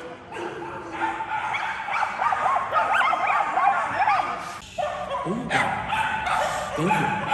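A dog whining and yipping in a quick run of short, high cries that rise and fall in pitch.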